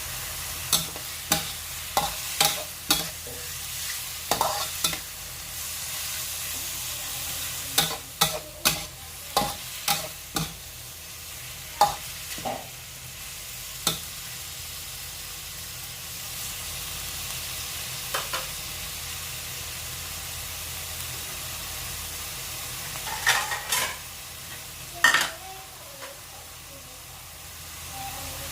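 Holy basil and seafood stir-frying in a hot pan: a steady sizzle, broken by clusters of sharp clanks and scrapes as the spatula stirs and tosses the food against the pan, busiest near the start, in the middle third and again near the end.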